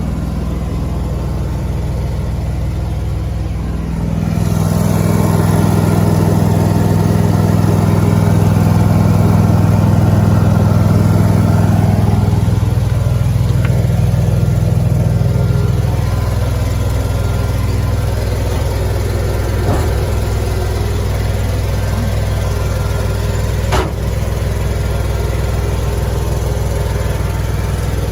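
Engine running steadily. About four seconds in it picks up and runs harder, then settles back to a lower, steady run between about twelve and sixteen seconds. There is one sharp click near the end.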